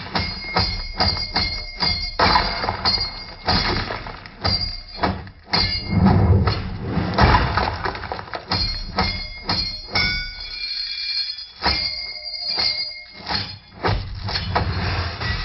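A rapid, uneven run of sharp knocks and hits, some with a short ringing metallic tone. It thins out to sparser strikes from about ten to fourteen seconds in.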